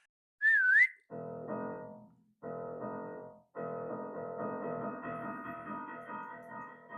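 A person whistles one short note about half a second in: it dips and then rises, and it is the loudest sound. Piano-like keyboard music follows in three phrases, the last one long.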